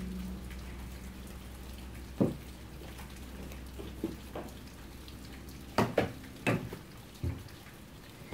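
Steady rain falling, with a handful of sharp knocks in the second half.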